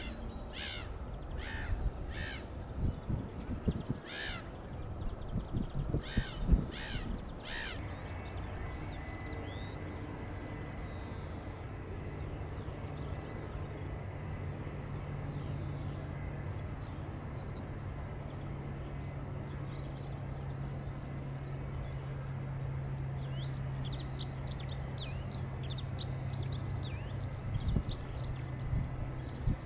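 Harsh bird caws, repeated about once or twice a second for the first eight seconds. A steady low hum then sets in, and small birds twitter near the end.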